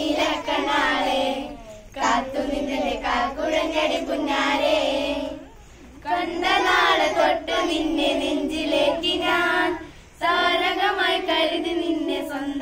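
A group of children singing together in unison, in phrases of a few seconds separated by short breaths.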